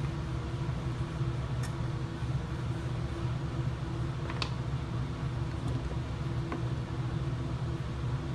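A steady low machine hum, with a few faint light clicks.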